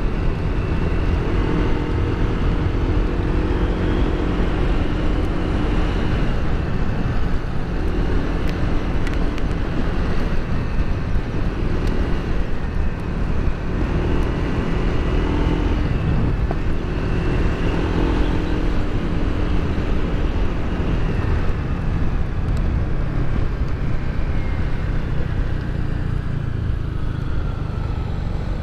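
Motorcycle engine running while riding, its pitch rising and falling with the throttle, over a steady low rumble of wind and road noise on a helmet-mounted microphone.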